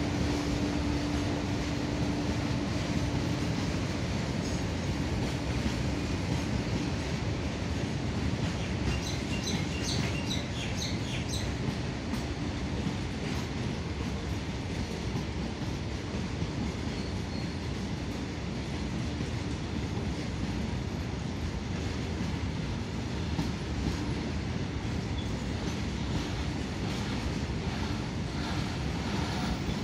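Indian Railways covered goods wagons rolling past at steady speed, their steel wheels running over the track in a continuous rumble and clatter. A steady low hum sounds for the first few seconds, and a short burst of high squeaks comes about ten seconds in.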